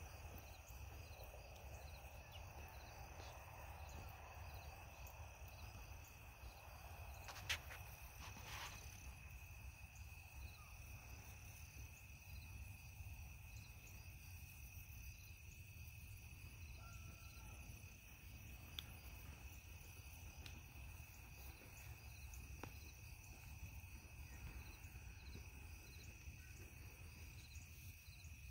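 Faint insect chorus: a steady high trill with a softer pulsing chirp above it, over a low outdoor rumble. Two brief clicks come about seven and a half and eight and a half seconds in.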